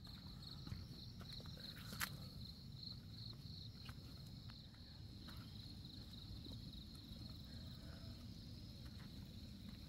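Faint insects keeping up a high, pulsing trill, over a low rumble of walking and handling noise. A single sharp click comes about two seconds in.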